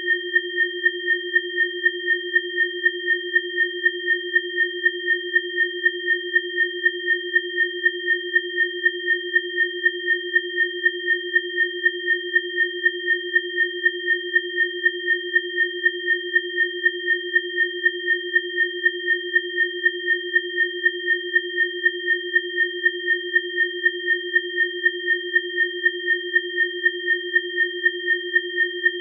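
Synthesised sine tones of a frequency-therapy session: three steady pure tones, low, middle and high, held unchanged, with the sound pulsing evenly a few times a second.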